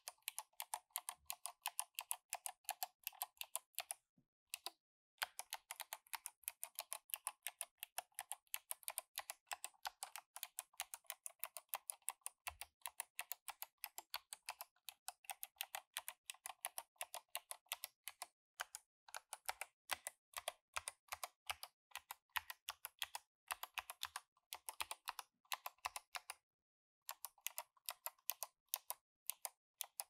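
Fast, continuous typing on a K-Type mechanical keyboard with Kailh BOX Navy clicky switches and SA Pulse keycaps: a rapid run of sharp key clicks, broken by two brief pauses, one around four seconds in and one near the end.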